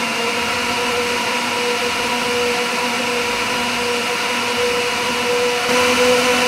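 Electric mixer-grinder jar running steadily at full speed, blending frozen strawberries, banana and milk into a smoothie: a loud, even motor whine that holds one pitch.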